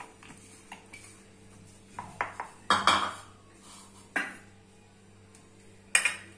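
Several clatters and knocks of kitchen vessels as cut tomato pieces are tipped from a plastic bowl into a steel mixer-grinder jar. The loudest come about three seconds in and near the end, when a steel plate of spices is set down on the counter.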